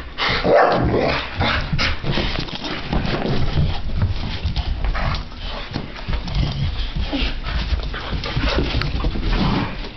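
Two dogs playing together over a plush toy, making whining vocal noises and irregular scuffling sounds as they mouth and tug at it.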